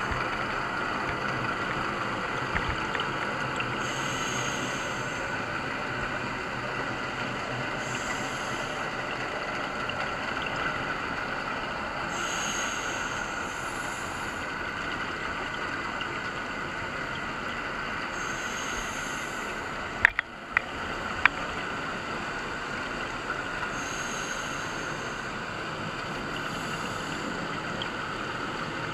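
Underwater sound picked up through a dive camera's housing: a steady hiss, with a scuba diver's exhaled bubbles breaking out every four to six seconds and three sharp clicks about two-thirds of the way in.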